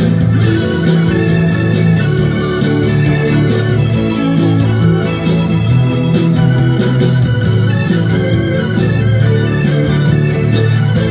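Instrumental break of a country-rock song, with an organ holding chords over a steady beat and no singing.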